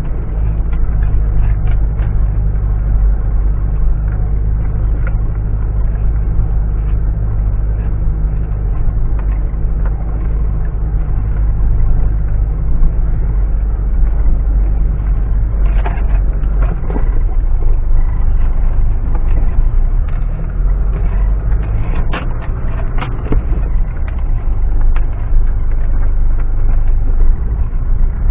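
Mitsubishi Pajero driving off-road, its engine running with a steady low drone. Scattered knocks and clatters come through, bunched just past the middle and again about three quarters in.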